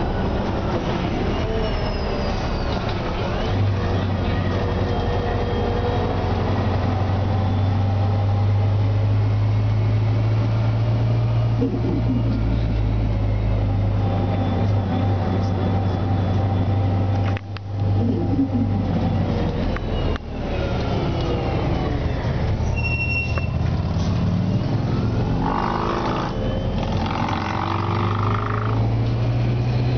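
A 2003 Orion VII CNG transit bus's Detroit Diesel Series 50G four-cylinder natural-gas engine and Voith DIWA automatic transmission, heard from inside the cabin while under way, with a steady low drone. The sound drops out briefly twice about two-thirds of the way in, and then the engine note climbs in steps near the end.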